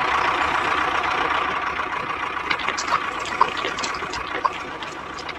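A small motor running steadily with a thin whine, slowly getting quieter, with a few sharp clicks in the second half.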